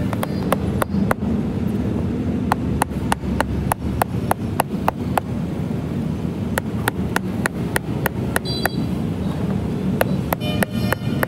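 Small hand hammer tapping on the work on a cut-down tyre, in runs of light, sharp taps about three a second with short pauses between the runs, over a steady low rumble.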